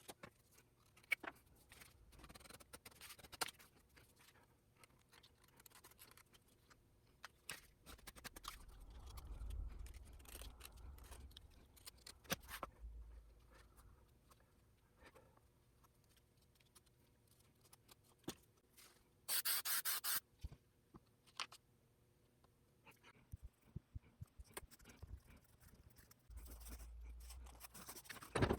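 Hand work on an axe mask: scattered small clicks with light scraping, rubbing and cutting sounds. About two-thirds of the way through comes one louder rushing noise lasting about a second.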